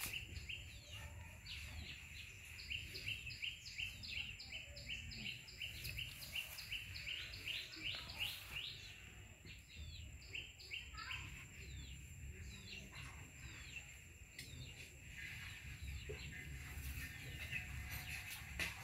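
A bird chirping in quick repeated runs of short, high notes, about three a second, thinning out to scattered chirps after the first half. A faint steady high whine runs underneath.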